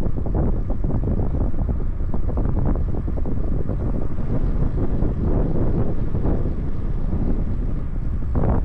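Steady low rumble of wind buffeting the microphone while riding an e-bike at speed, mixed with the bike's road noise.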